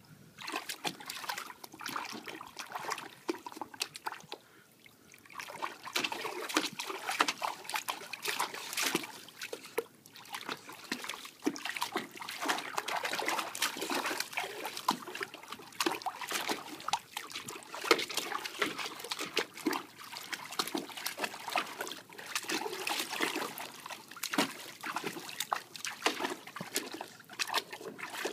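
An Old English Bulldogge pawing and splashing water in a shallow plastic kiddie pool: irregular splashes and sloshing, with a brief lull about four seconds in.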